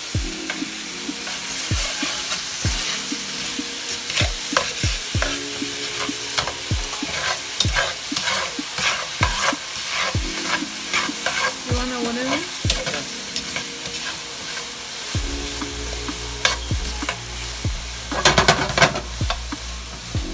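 Cubed chicken breast sizzling in olive oil in a skillet as it is stirred, the utensil knocking and scraping against the pan in many short clicks, with a cluster of them near the end. A pan of bacon fries alongside.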